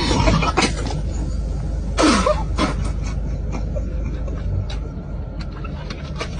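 A short, loud throaty sound from a person about two seconds in, falling in pitch, over a steady low rumble.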